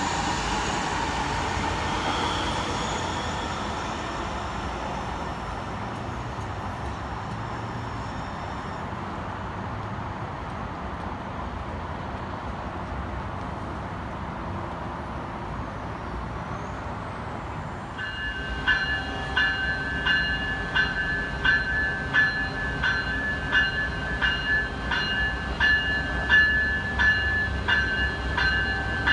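Sound Transit Link light rail trains running on an elevated track, a steady rumble that fades over the first few seconds. About eighteen seconds in, it switches to an Amtrak ALC-42 Charger locomotive's bell ringing steadily, a little over one strike a second, over the low rumble of the locomotive.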